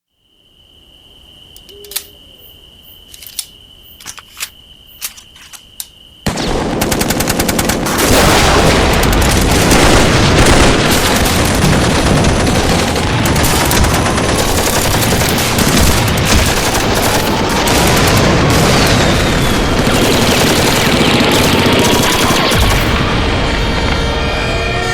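Battle sound effects of gunfire. A few separate gunshots sound over a faint steady high tone. About six seconds in, a sudden loud barrage of machine-gun fire starts and goes on as a continuous din of heavy firing.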